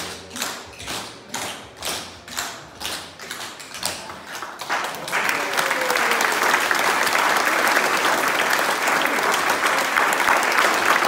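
Tap shoes striking a hard floor in time, about two sharp taps a second. About five seconds in the taps stop and an audience breaks into steady applause.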